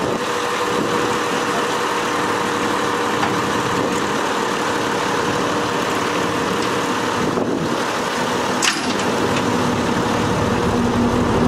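Recovery crane's diesel engine running steadily under load as it lifts a wrecked dump truck. A single sharp knock comes about nine seconds in.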